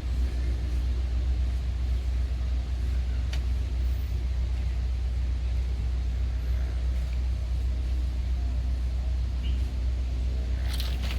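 Diesel locomotive engine running steadily with a deep, even rumble. A few short clicks come near the end.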